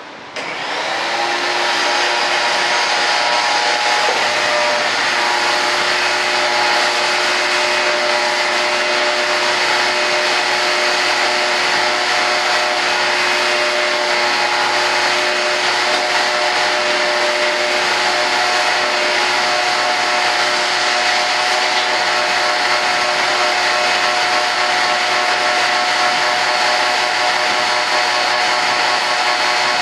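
Shop vac switched on, its motor spinning up within about a second and then running steadily with a whine over the rush of air, sucking up fibreglass dust.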